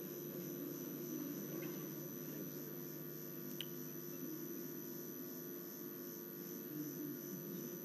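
Quiet room tone of a large chamber through a broadcast feed: a steady electrical hum and faint hiss, with a single faint click about three and a half seconds in.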